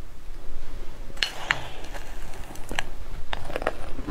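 A spoon scooping crushed ice in a glass bowl: a few sharp clicks and short crunches spread over a couple of seconds, starting about a second in.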